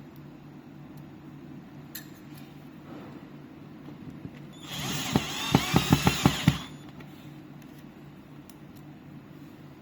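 Power drill running for about two seconds midway, with a string of sharp clicks during the run, while fixing a water heater's mounting plate to the wall.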